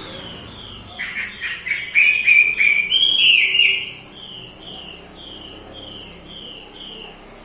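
A songbird singing: a loud burst of quick repeated notes, then a run of evenly spaced, falling whistled notes, about two a second.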